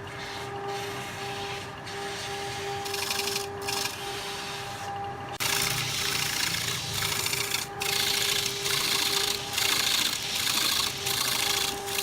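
Wood lathe turning a wooden blank, its cutting tool scraping across the spinning wood over a steady motor hum. The cutting is lighter at first and turns abruptly louder about five seconds in, then comes and goes in short regular pulses.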